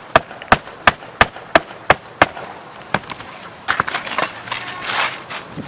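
Hammer driving a roofing nail through an asphalt shingle: about seven quick, even strikes, roughly three a second, then a single strike. Scraping and rustling follow in the second half.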